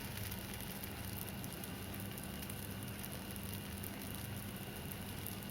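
Gram-flour pudla batter sizzling in oil on a hot griddle: a steady fine crackle over a low, even hum.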